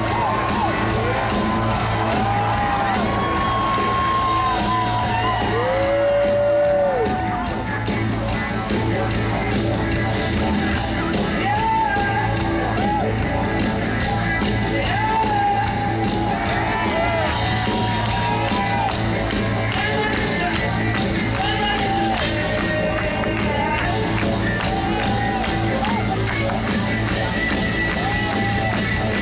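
Live band playing with a steady bass line and full backing, and long held vocal notes that bend in pitch; the crowd whoops now and then.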